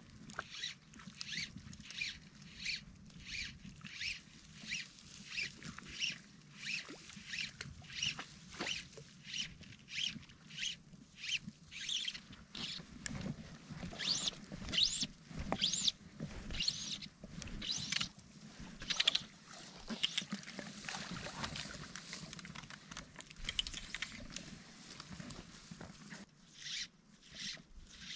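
Fly line being stripped in by hand through the rod guides, a rasping stroke repeated about twice a second, with some longer pulls partway through.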